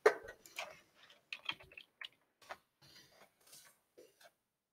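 Typing on a computer keyboard: a run of irregular, quick key clicks, the sharpest one at the very start.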